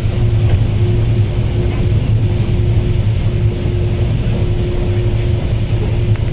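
Tour boat's engine running at a steady cruising speed, a constant low drone with a steady hum, heard from on board.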